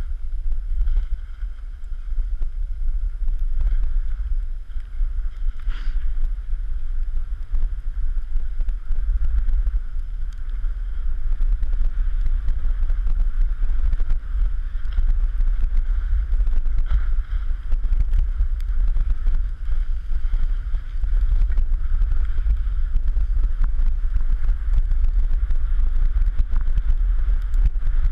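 Wind buffeting the microphone of a camera moving downhill on snowblades, heard as a steady deep rumble, with the hiss of the blades sliding over packed snow. A brief knock comes about six seconds in.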